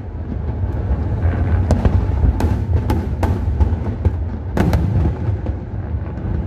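Aerial fireworks shells bursting in a display: a string of sharp bangs, several in quick succession, over a steady low rumble.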